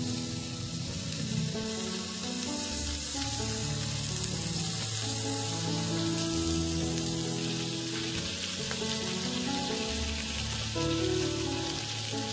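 Raw pork belly slices sizzling steadily in a preheated dry nonstick frying pan, cooked without oil, as tongs lay more slices in.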